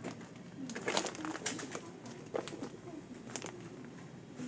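Supermarket aisle background sound: a low wavering murmur with four short, sharp taps spread through it.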